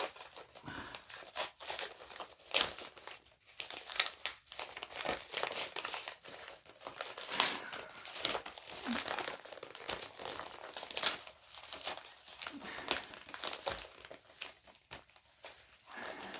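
Plastic packaging being crinkled and torn open by hand as a Blu-ray is unwrapped, an irregular run of crackles and rustles that thins out near the end.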